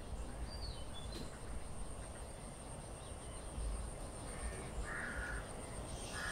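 A crow caws once, harshly, about five seconds in, over faint outdoor ambience with a few faint bird chirps and a steady thin high tone.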